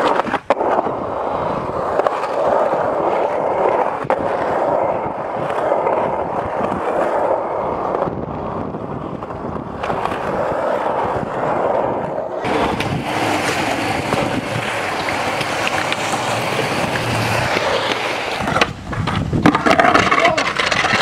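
Skateboard wheels rolling over concrete, a continuous rumble broken by a few sharp clacks of the board.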